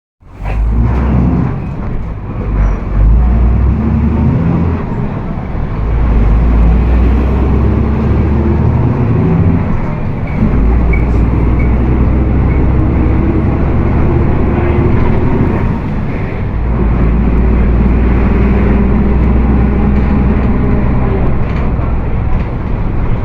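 Volkswagen 17.230 EOD bus running on the road, its low drivetrain drone carrying the growl of the differential. The drone dips briefly about 10 seconds in and again about 16 seconds in.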